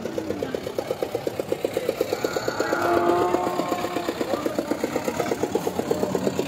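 A small engine running steadily at idle, an even putter of about eight beats a second.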